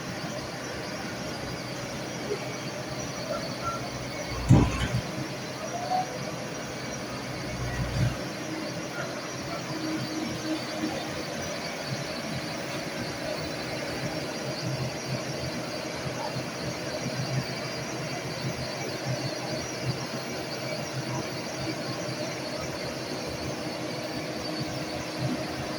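Excavator running, with a steady mechanical hum and a few high tones, and two heavy thumps about four and a half and eight seconds in, plus lighter knocks.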